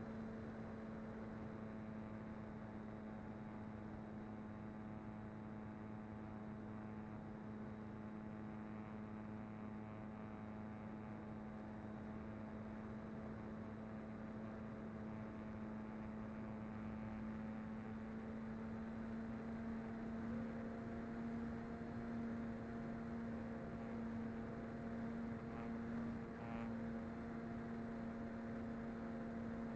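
Electric motor and propeller of a Mini Talon FPV model plane droning at a steady cruise throttle, heard from the onboard camera. Its pitch wavers slightly in the last third.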